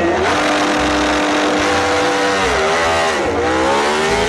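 Racing motorbike engine sound effect revving. The engine note holds steady, drops briefly about two and a half seconds in, then climbs steadily.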